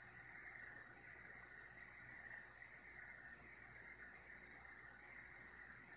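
Near silence: room tone, a faint steady hiss with a low hum.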